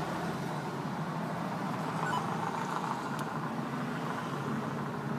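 Steady background noise inside a car cabin, with one faint click about three seconds in.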